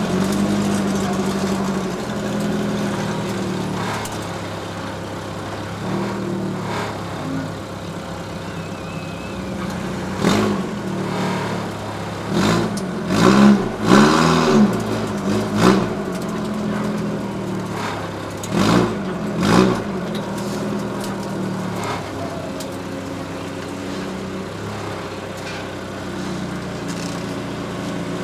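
Car engine running at low speed, with a string of quick revs about halfway through, each rising and falling in pitch, and two more revs a few seconds later.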